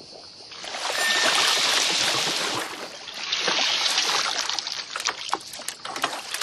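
Two hissing sprays of water from an archerfish's spat jet, the second one spattering with many sharp droplet ticks as the water hits the leaves.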